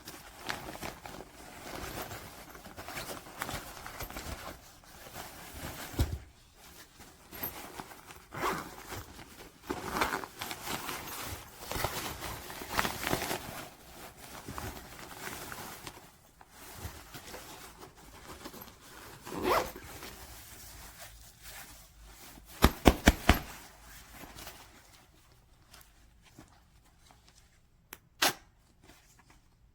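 Zippers on a small nylon cabin backpack being pulled open and shut, with fabric rustling as the bag is handled. About two-thirds through comes a quick run of sharp clicks.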